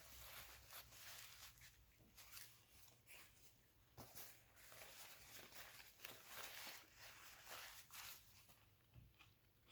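Near silence with faint chewing and mouth noises, soft and intermittent, from someone eating a bite of a patty sandwich with gravy.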